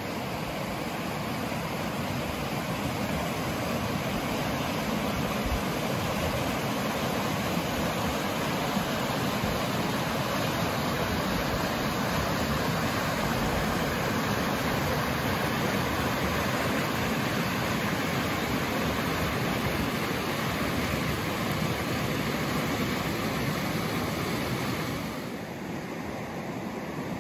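A swollen, muddy river rushing through rapids over rocks: a steady, even rush of water that eases off a little near the end.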